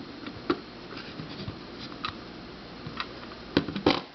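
Light clicks and knocks of plastic puzzles and their packaging being handled, picked up and set down, scattered about one a second, with two louder knocks close together near the end.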